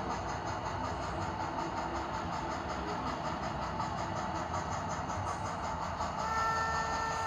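Sound decoder of an HOn3 Blackstone D&RGW C-19 steam locomotive model playing a steady rhythmic steam exhaust chuff, with a chime whistle sounding from about six seconds in.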